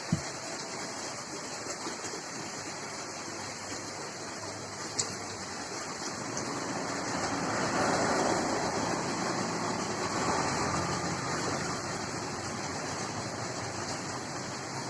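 Steady rain falling, a continuous rushing hiss, growing louder for a few seconds in the middle.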